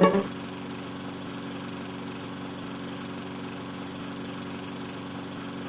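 Small lawn mower engine running steadily at an even pitch, just after a short burst of plucked-string music cuts off at the start.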